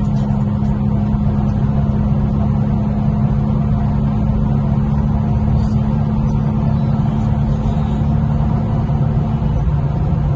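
Infiniti Q50's twin-turbo 3.0-litre VR30 V6 with a bolt-on aftermarket exhaust, droning steadily while cruising in fourth gear, heard from inside the cabin over road noise. Its pitch dips a little near the end.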